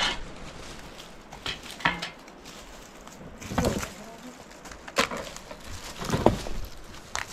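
A series of about six irregular knocks and clatters, a second or two apart, some with a duller thud behind them.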